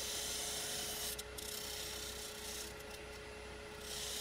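A lathe tool scraping into the face of a spinning cherry platter, a hissing cut that is strong for about a second, lighter for a while, stops, and comes back strongly near the end, over the steady hum of the lathe motor.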